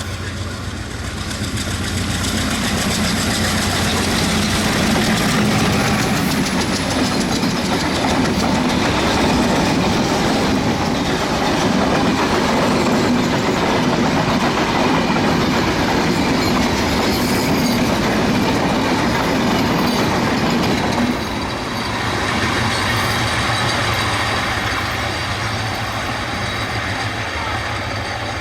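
Broad-gauge express train running through a station at speed, its wheels clattering over the rail joints in a loud, steady rush. The noise drops a little, abruptly, about 21 seconds in.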